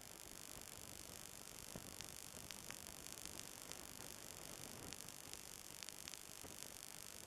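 Near silence: a faint steady hiss with a few faint scattered ticks.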